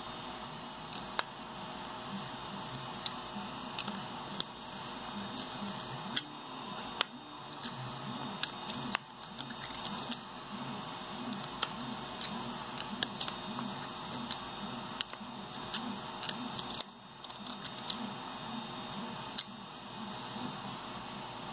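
Irregular sharp clicks and taps of a screwdriver and hard plastic parts being handled and fitted together, over a steady hiss and hum.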